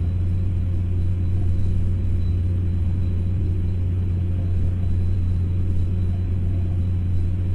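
Steady low hum and rumble with no change and no distinct events: the recording's constant background noise.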